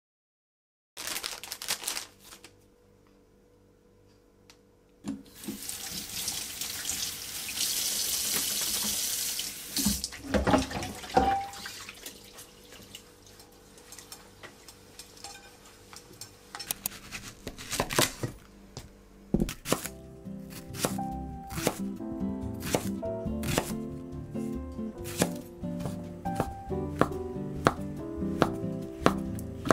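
Tap water running into a kitchen sink, then a frying pan and dishes being scrubbed and knocking in the sink. From about two-thirds of the way in, a kitchen knife cuts steadily through shiitake mushrooms on a wooden cutting board, roughly two cuts a second, over background music.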